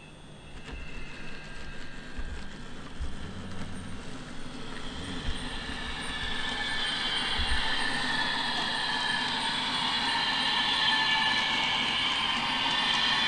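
N gauge Class 321 model's DCC sound decoder playing the electric unit's traction motor whine through the model's small speaker, building up and getting louder as the unit accelerates away.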